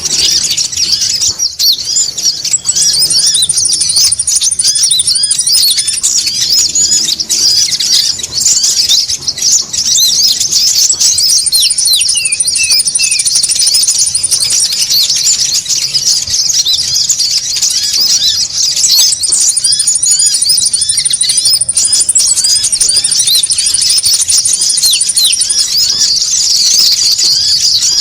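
A noisy group of konin sunbirds chattering nonstop in rapid, high chirps. A long, high, even trill comes in three times over the top.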